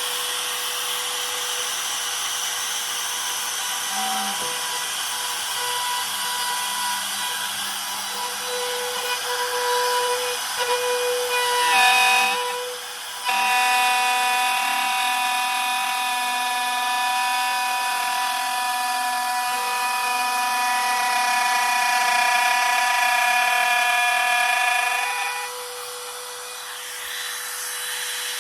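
Electric wood router running steadily and cutting a groove into a hardwood table leg, with a short drop in loudness about halfway through before it bites again.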